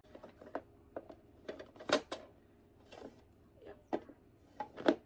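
Handling noise from a plastic Barbie mini beauty fridge and its accessories: irregular light clicks and knocks of plastic, a few sharper ones about two seconds in and near the end.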